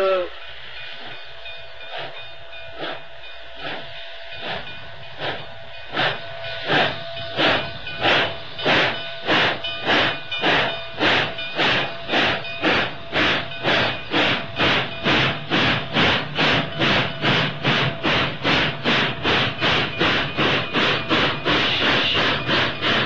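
Baltimore & Ohio 'Big Six' steam locomotive starting out from a stand with a steady hiss of steam, its exhaust chuffs slow and spaced at first, then quickening and growing louder into an even beat of about two a second.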